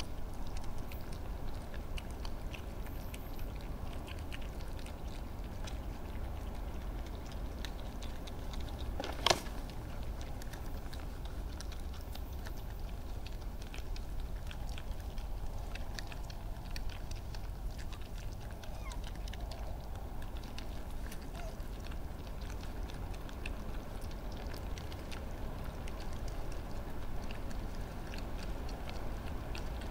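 Badgers and foxes chewing and crunching peanuts and food scraps, heard as many small irregular clicks over a steady low hum. One sharp, loud sound stands out about nine seconds in.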